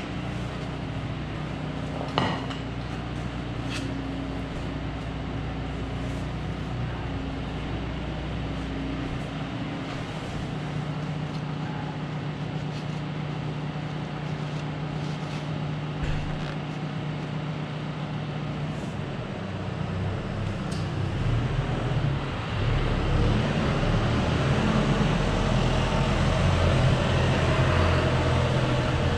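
Steady low mechanical hum from a running motor or engine, which grows louder in the last third. A few sharp knocks come in the first few seconds, as of a wooden board being handled against metal.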